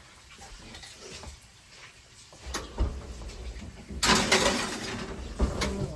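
Kitchen handling noises: a few knocks and low bumps, then a louder scraping, rustling stretch about four seconds in, like a door or cupboard being worked.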